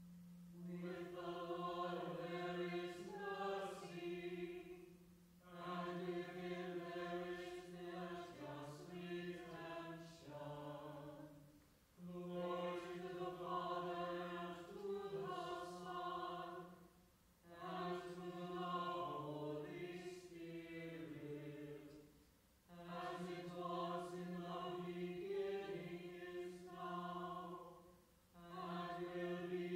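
A small group of voices chanting a psalm. Each phrase is held on one reciting note and closes with a short melodic cadence, with a breath between phrases about every five to six seconds.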